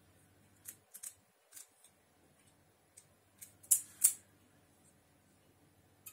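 Light plastic clicks and snaps as a red missile is handled and pushed into a spring-loaded plastic toy missile launcher. Two sharper clicks come close together about three and a half to four seconds in.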